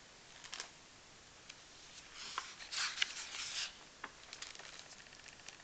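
A page of a hardcover picture book being turned by hand: a papery swish lasting about a second and a half near the middle, with light clicks and taps of the book being handled before and after it.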